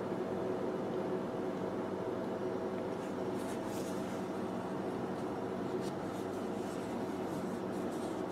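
Steady room hum, with faint rustles and clicks from about three seconds in as a flip phone is handled and folded shut.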